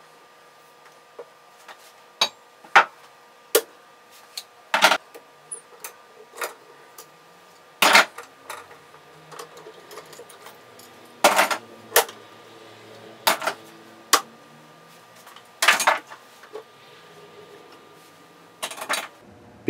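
Metal C-clamps being unscrewed and taken off a glued guitar fingerboard: about a dozen irregular clicks, clinks and knocks of metal on metal and wood. The glue has set, so the clamps are being removed.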